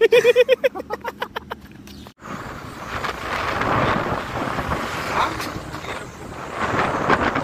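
Wind rushing over the microphone with road and engine noise from a moving motorbike. It opens with a short pitched sound repeated as a quickly fading echo, which cuts off abruptly about two seconds in.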